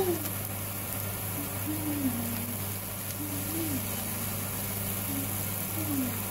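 Steady low hum, with a voice faintly in the background now and then.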